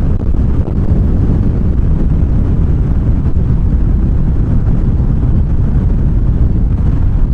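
Very strong gusty wind buffeting the microphone: a loud, steady low rumble.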